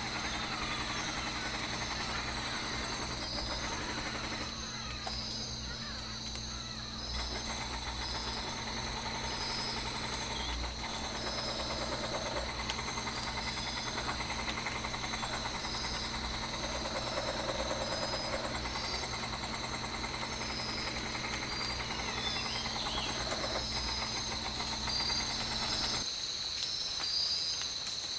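Outdoor nature ambience: a steady high insect drone and a string of short, evenly repeated high chirps. Under them runs a low, steady motor-like hum that cuts off abruptly near the end.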